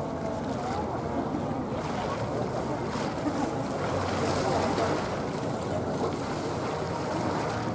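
Steady murmur of a crowd, many people talking at once with no single voice standing out, over a low rumble of wind on the microphone.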